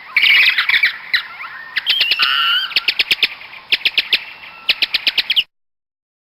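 Bats squeaking and chattering: shrill squeals and squabbling calls mixed with rapid clicking trills, cutting off suddenly about five and a half seconds in.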